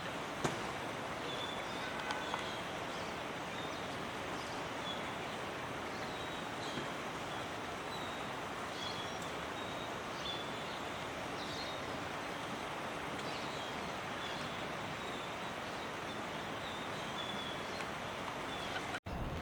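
Outdoor ambience: a steady rushing noise like distant flowing water or traffic, with short, high chirps repeating about once a second and a few faint clicks near the start.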